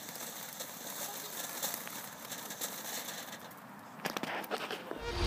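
TNT Rose Blossom Fountain firework burning out: a steady hiss of sparks with fine crackling that fades about three and a half seconds in, followed by a few scattered clicks. Electronic music cuts in at the very end.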